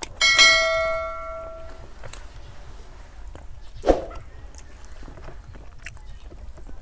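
Subscribe-button sound effect: a mouse click, then a bright bell-like ding that rings and fades over about a second and a half. A short knock follows about four seconds in, with soft sounds of a hand mixing rice on a steel plate in between.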